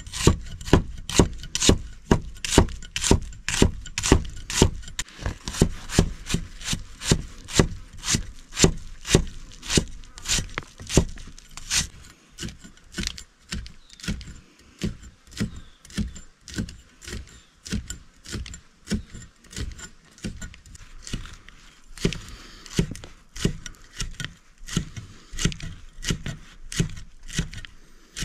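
A heavy steel cleaver chopping shallots, onion and chillies on a thick wooden block: a steady run of sharp knocks, about two to three a second, softer in the second half.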